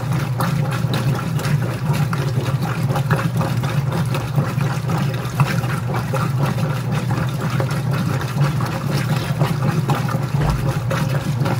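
Whirlpool direct-drive top-load washer agitating during the rinse: water sloshing in the tub over a steady low hum from the motor and drive.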